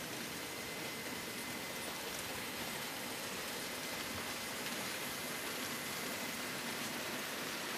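HO-scale model trains running on the layout: a steady hiss and rumble of wheels on track, with a faint thin high whine held throughout.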